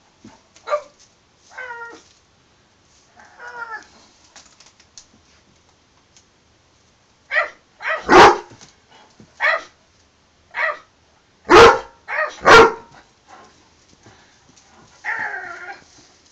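Dobermann whining and yipping in short calls that bend in pitch, then barking, with three loud barks in the middle, and a longer whine near the end.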